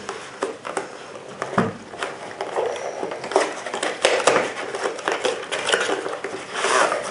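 Unboxing handling noise: a cardboard box and paper packaging being handled, rustling, with frequent small clicks and knocks that grow busier from about three seconds in.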